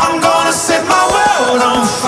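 Music playing: a pop song with a singing voice.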